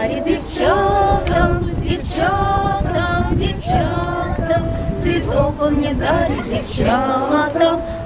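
Several women singing a song together, accompanied by a strummed acoustic guitar.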